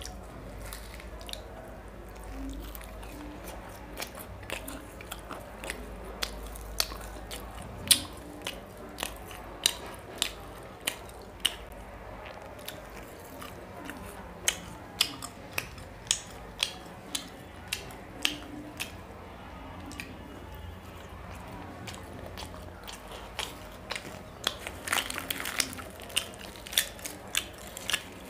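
Close-up eating: chewing and wet mouth smacking on mouthfuls of luchi (deep-fried puffed puri) dipped in mutton curry, with sharp clicks about one or two a second. A denser crackle about 25 seconds in, as a luchi is torn apart by hand.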